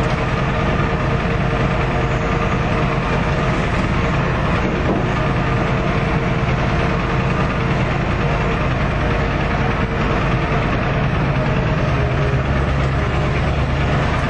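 A 1991 Ford F-250's 7.3-litre IDI diesel V8 running steadily at low revs in first gear, crawling along a rough track, heard from inside the cab.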